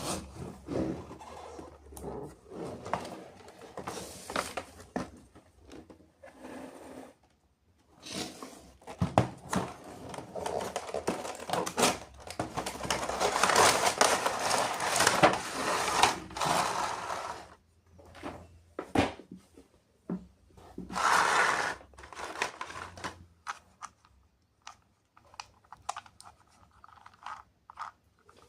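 Toy packaging being handled and opened: cardboard and plastic scraping, tearing and crinkling in irregular bursts, with small knocks and clicks. The longest, loudest stretch of rustling comes about halfway through.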